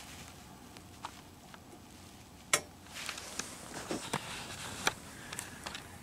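Handling noise from a camera being swung around, with rustling of insulated camouflage clothing and scattered small clicks and knocks; one sharp click about two and a half seconds in is the loudest, and a run of shorter clicks and rustles follows before it settles.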